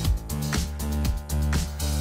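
Background music with a steady dance beat, about two beats a second, over a deep bass line.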